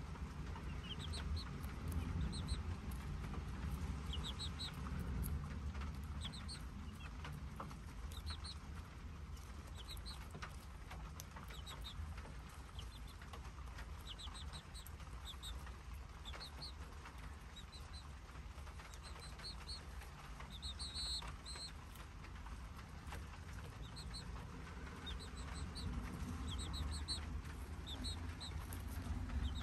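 Young chicks peeping in short, high chirps, over and over at irregular intervals while they peck at an ear of corn, over a steady low rumble.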